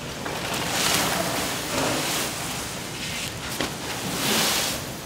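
Water sloshing and splashing in a large steel cooking kettle as radish chunks are tipped in from a colander and kelp is pushed down into it, in two swells about a second in and a little past four seconds, over the hiss of the steaming pot.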